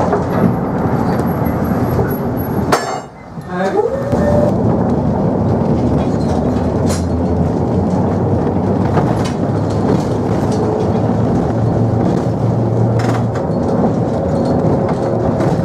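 Steady running noise of a freight work tram heard from on board: wheels rolling on the rails and the car's running gear rumbling. The noise briefly drops away about three seconds in, then carries on evenly.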